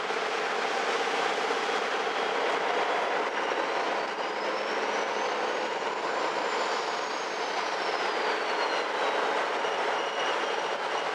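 Steady running noise of a MAN NG 313 articulated diesel city bus on the move, heard from inside the bus. A faint high whine rises and then falls over a few seconds in the middle.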